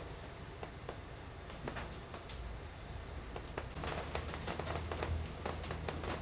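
Scattered light clicks and taps of a steel chisel being handled, thickest in the second half, over a low steady hum.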